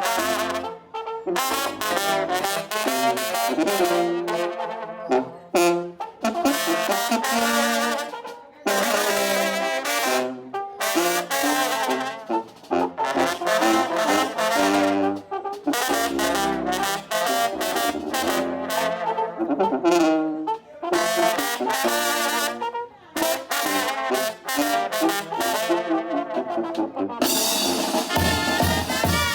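Sinaloan brass band (banda sinaloense) playing live. Trumpets and trombones play melodic phrases separated by short breaks, over low bass notes. Near the end the sound gets fuller and brighter.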